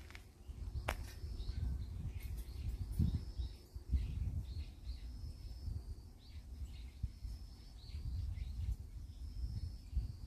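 Outdoor ambience: small birds give short high chirps every second or two over a fluctuating low rumble, with a single sharp click about a second in.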